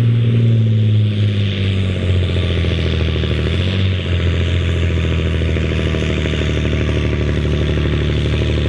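John Deere 4640's six-cylinder turbo diesel engine running hard under heavy load as the tractor pulls the weight-transfer sledge. Its pitch sags slightly over the first few seconds, then holds steady.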